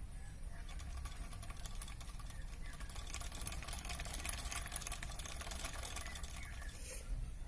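Hand-cranked ceiling-fan coil winding machine being turned, its gears and turn counter making a fast, steady rattle of clicks.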